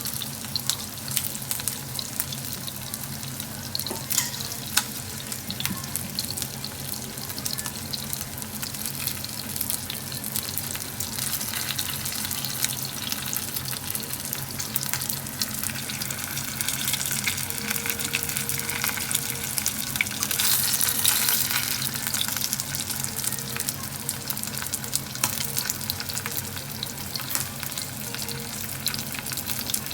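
Chicken thighs deep-frying in hot oil: a steady dense crackle and sizzle, swelling louder about twenty seconds in.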